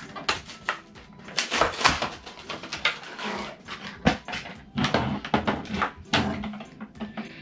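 Cardboard and plastic toy packaging rustling, crinkling and scraping as it is pulled apart by hand, in irregular bursts of handling noise.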